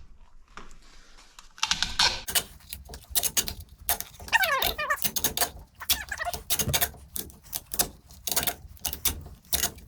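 Duct tape being pulled off the roll and wrapped around a part, crackling in quick short rips with a few brief squeals, starting after about a second and a half of quiet.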